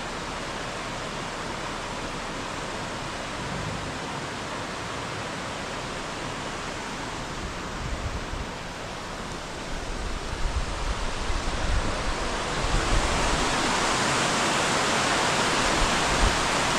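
Shallow river rushing over rocks and riffles, a steady hiss of flowing water that grows louder about two thirds of the way through.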